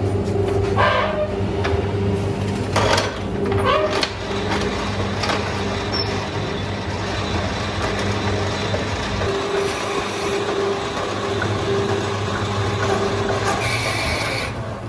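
Manual lathe running with a steady motor hum, with a few short scrapes or knocks in the first few seconds.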